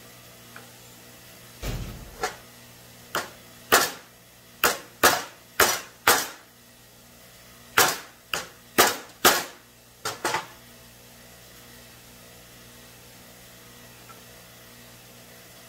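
Hammer striking a bent engine push rod laid on a wooden block to straighten it: about fifteen sharp blows in uneven runs, with a short pause midway, stopping about two-thirds of the way in.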